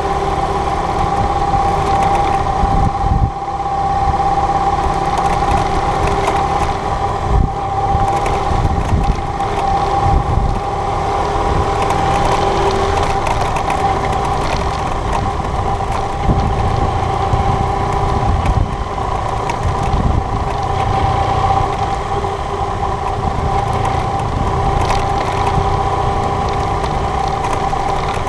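BMW GS adventure motorcycle engine running at a steady low speed, heard up close from a mount on the bike. Uneven low rumble and thumps from the rough gravel track run underneath.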